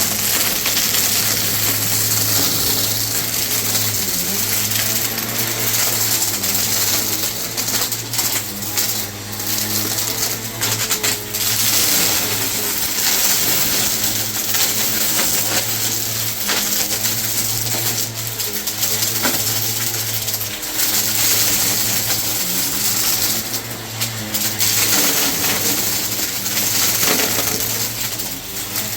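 Vacuum cleaner running steadily, with irregular clattering and ticking of small debris being sucked up through it.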